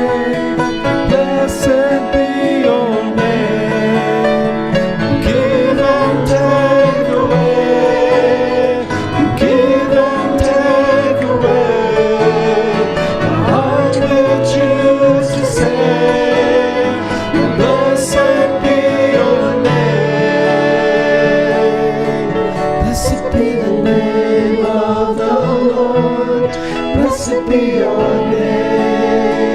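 A song sung with instrumental accompaniment, playing steadily throughout.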